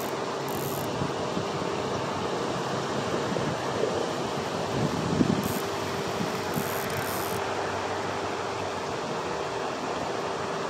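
Steady rushing noise of wind and the lake's spray fountain splashing, with a faint steady hum underneath and a brief soft knock about five seconds in.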